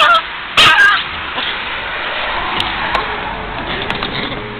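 A small dog whining and yelping with excitement in the first second, then steady background noise from a tram halted at the stop.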